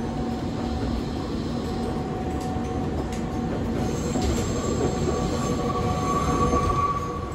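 Electric train running, heard from inside the passenger car: a steady rumble with a constant hum and whine, and a high wheel squeal coming in about halfway through.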